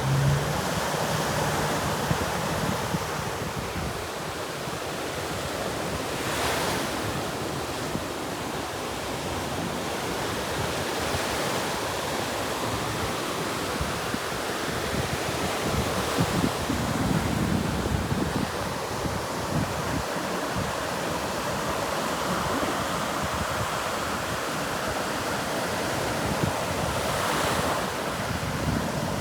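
Ocean surf washing steadily, with a couple of louder surges, and wind blowing across the microphone.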